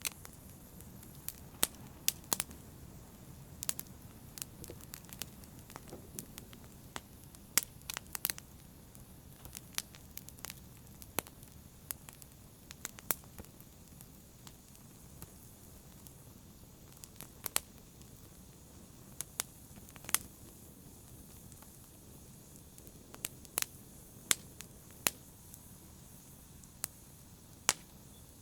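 Fire crackling steadily, with irregular sharp pops and snaps, some much louder than others, over a soft continuous hiss.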